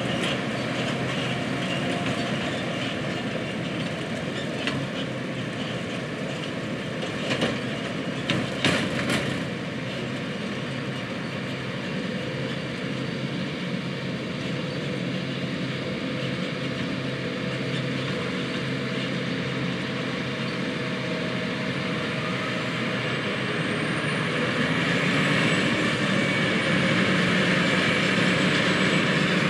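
Corn silage harvesting machinery working: John Deere 8600 self-propelled forage harvesters and tractors hauling forage wagons, running with a steady, rattling drone. A few sharp clanks come about eight seconds in, and toward the end the engine noise grows louder with a high whine joining in.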